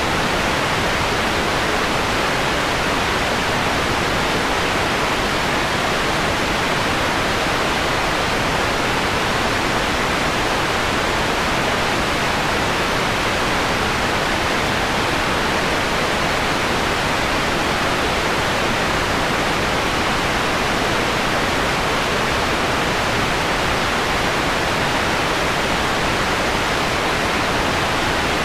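Steady synthetic white noise, a smooth, unchanging hiss filtered so that most of it sits in the middle range, with the highest and lowest parts turned down.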